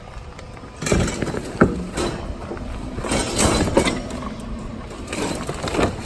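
Clattering and rustling of junk being handled in a curbside trash pile, with irregular knocks starting about a second in.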